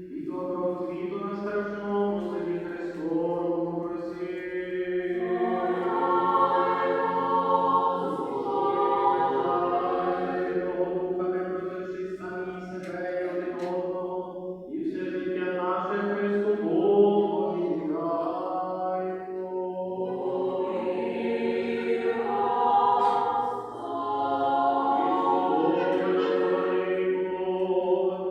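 Unaccompanied choir singing a slow liturgical chant in harmony, long notes held across phrases with brief pauses for breath between them: sung worship of a Ukrainian church community.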